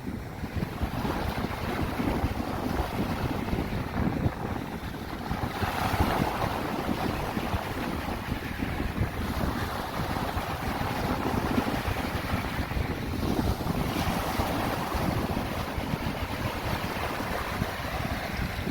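Sea waves and wind, with wind buffeting the microphone in a steady low rumble; the hiss of the waves swells twice.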